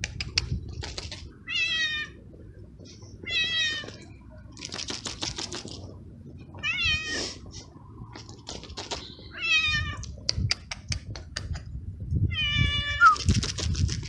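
Young kitten meowing repeatedly: about five short meows, a few seconds apart. Between them come bursts of sharp clicks.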